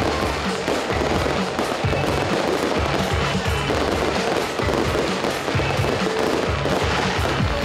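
Fireworks and firecrackers going off in a dense, continuous crackle of bangs and low thumps.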